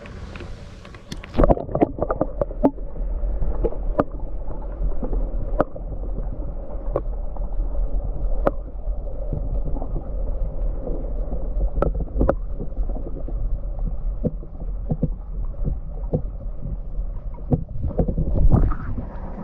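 Underwater sound picked up by a submerged action camera in a lake: a muffled, deep rumble of moving water with sharp clicks and knocks every second or two, swelling briefly near the end.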